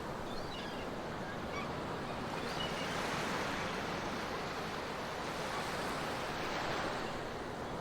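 Sea surf washing steadily, swelling and easing, with a couple of faint, short seabird calls in the first three seconds.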